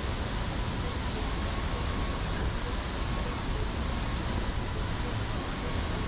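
Steady roar of a waterfall, rushing water making an even, unbroken noise with a deep rumble underneath.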